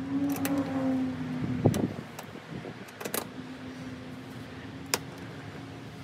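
A few sharp metal clicks and knocks from hands fitting a mirror bracket on the truck cab, the loudest about a second and a half in, over a steady low hum that fades and comes back about halfway through.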